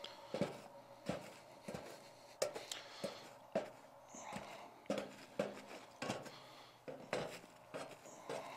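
A shovel scraping aluminium foil and hot charcoal away from the base of a galvanized metal trash can, giving light, irregular knocks and crackles about one or two a second.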